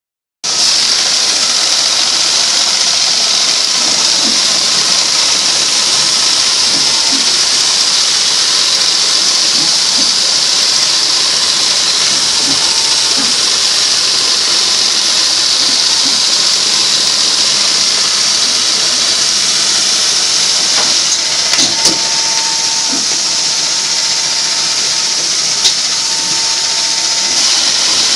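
Steady loud hissing machinery noise from a mop head sewing machine workshop, with a few sharp clicks in the last third and a faint steady tone joining for a few seconds near the end.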